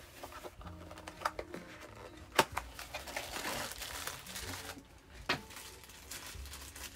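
Handling noise at a craft desk: a few sharp clicks and knocks, the loudest about two and a half and five seconds in, with a stretch of crinkling between them, as tools are picked up to set eyelets with an eyelet punch.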